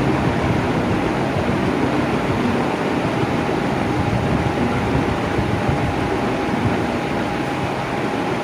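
Electric fan running steadily: an even rush of moving air with a low hum and a faint, steady whine from the motor.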